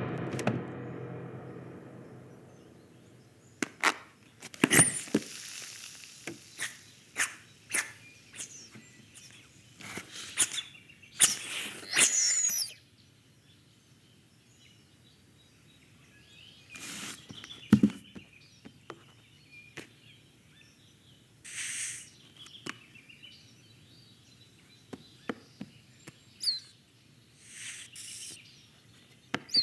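Film sound effects with no dialogue or music. A pitched ringing tone fades away over the first few seconds. Then comes a scattered series of clicks, knocks and short swishes, with a heavier thump about two-thirds of the way through.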